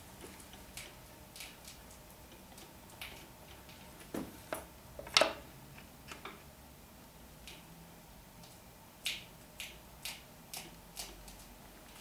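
Scattered sharp metallic clicks and knocks as a pry bar works at the seam between a BMW N54 engine block and its bedplate, the loudest about five seconds in and a quick run of several more near the end. The bedplate does not come free: it is held tight by sealant.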